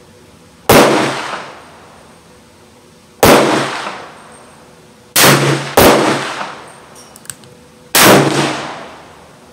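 Five .22 Magnum shots from a Taurus Tracker revolver. Each is a sharp crack with a short echoing tail under the range's roof, and two of them come about half a second apart midway.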